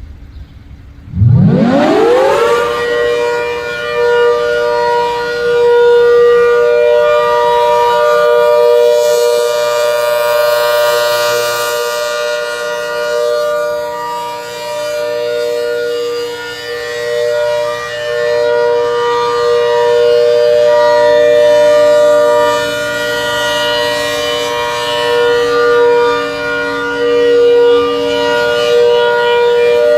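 Hurricane 130 warning siren winding up from a low pitch to a loud, steady wail about a second in, then holding it: a two-note chord with many overtones, its loudness swelling and dipping a little.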